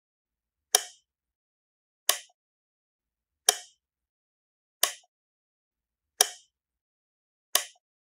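A switch being flipped on and off: six sharp clicks, evenly spaced about every second and a half, each dying away at once with nothing between them.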